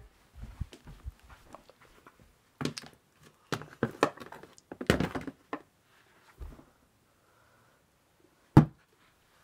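Handling noise of a phone carried against clothing: rustling, with scattered knocks and thuds. A sharp knock near the end is the loudest.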